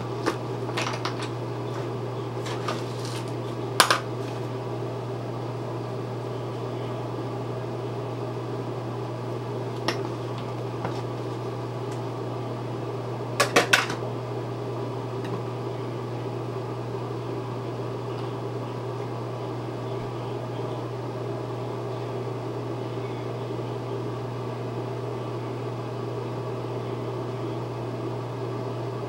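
A fan running with a steady low hum, with a few light clicks and taps of makeup items being handled, three of them in quick succession about halfway through.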